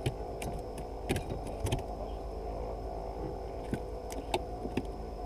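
A steady motor hum, with scattered sharp clicks and knocks as a fishing line and rod are handled in a small wooden boat while a hooked fish is brought in.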